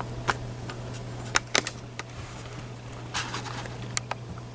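Sharp little clicks and taps of the small metal pins and parts of a gutted Medeco KeyMark lock being handled and set down on a hard surface, a few separate clicks with a quick double click about a second and a half in. A steady low hum runs underneath.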